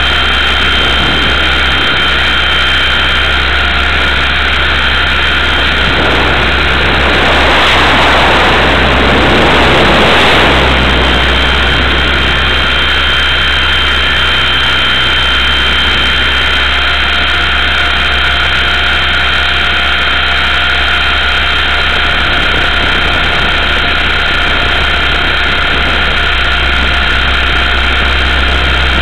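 Electric motor and rotor of a Multiplex Funcopter RC helicopter, heard from its onboard camera: a steady high whine over a constant rushing noise. A louder rush swells for a few seconds about seven seconds in.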